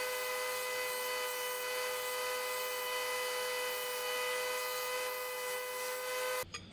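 Belt grinder running with a steady whine and hiss as a steel knife blade is ground against the belt. The sound cuts off suddenly near the end.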